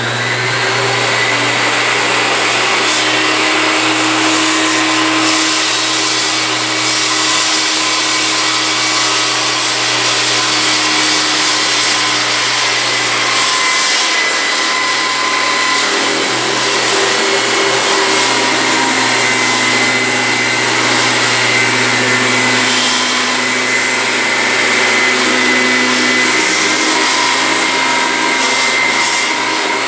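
Large Makita circular saw running steadily and cutting through teak. The whine shifts slightly in tone partway through as the blade meets more or less resistance in the wood.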